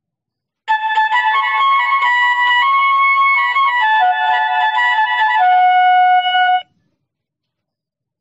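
Electronic doorbell chime from a "Whistle Melodies" sound chip playing a short whistle-like tune of clear stepping notes. It starts under a second in, steps down near the end to a longer, lower final note and cuts off after about six seconds.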